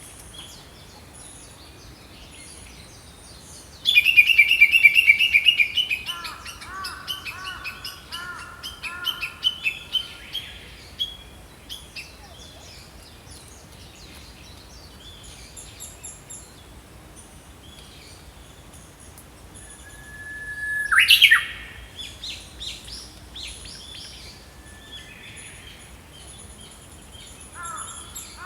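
Small songbirds singing and calling: a loud, rapid trill about four seconds in, followed by several seconds of repeated, lower chirping phrases. A second loud call with a rising sweep comes about two-thirds of the way through, and softer chirps continue around it over faint outdoor background noise.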